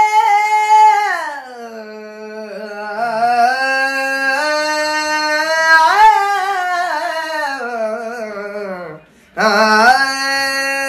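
A man singing unaccompanied in long held notes that slide up and down, with no clear words. He breaks off for a moment about nine seconds in and then starts again.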